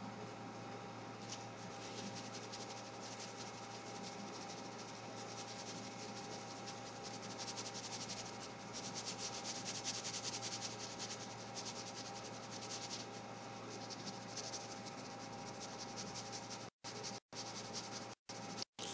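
Fine-tipped Fude brush pen rubbing and scratching in short, repeated strokes on glossy photo-quality paper, faint, a little louder about halfway through, over a steady low hum. The sound cuts out briefly a few times near the end.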